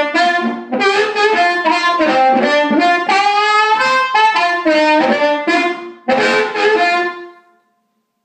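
Harmonica played cupped against a microphone and amplified through a homemade self-split push-pull tube harp amp. It plays short phrases of bending notes and ends on a held note that fades out about seven seconds in.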